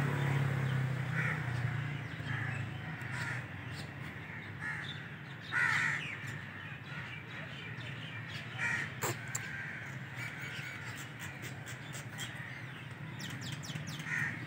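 Birds calling as they flock into the trees to roost at dusk: scattered calls, the loudest about six seconds in, then a run of quick short calls in the last few seconds, over a low background hum that fades after the first couple of seconds.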